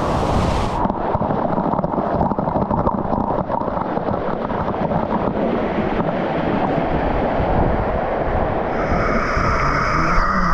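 Waterfall's rushing water, a loud, steady rush. A few steady high tones come in near the end.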